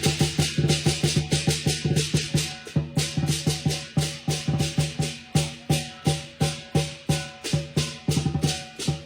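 Lion dance percussion: a large Chinese lion dance drum beaten in a steady, driving rhythm with quick rolls, and cymbals clashing on the beats.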